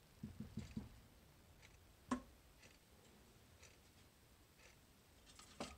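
Near silence, broken by a few soft knocks in the first second, one sharp click about two seconds in and a few clicks just before the end. A faint tick recurs about once a second.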